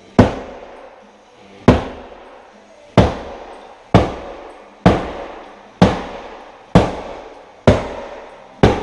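A series of sharp, loud impacts, about one a second, each ringing briefly as it fades, over faint background music.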